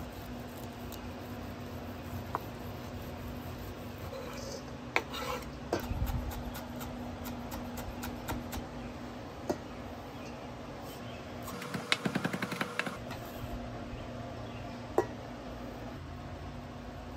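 Chef's knife cutting and chopping on a wooden cutting board, through grilled corn kernels and green onions: scattered single knocks, then a quick run of rapid chops about twelve seconds in. A steady low hum runs underneath.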